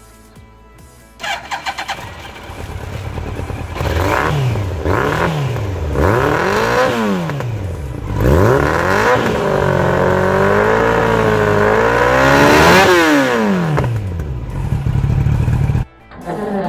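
Yamaha sport motorcycle with an Arrow slip-on exhaust starting up about a second in, then revved in a series of quick rises and falls, held high for a few seconds and let drop back toward idle. The sound cuts off suddenly near the end.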